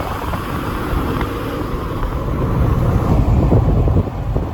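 Vehicle on the move: steady engine and road rumble with wind buffeting the microphone, swelling slightly about three seconds in.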